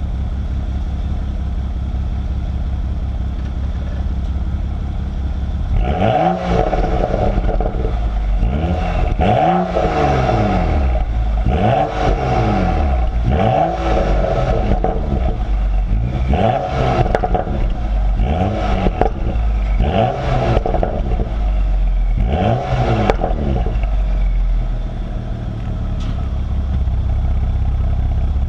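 BMW 335xi's turbocharged straight-six through a Corsa axle-back exhaust, running at a steady drone and then, from about six seconds in, revved about seven times, its pitch climbing and falling each time.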